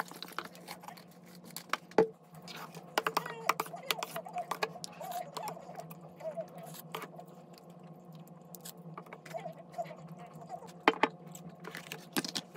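Metal spoon clinking and scraping against a bowl and plastic takeout containers while rice porridge is eaten and served, with sharp knocks about two seconds in and near the end, over a steady low hum.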